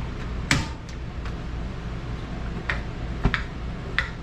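Several sharp, irregular clicks and taps, the loudest about half a second in, over a low steady hum.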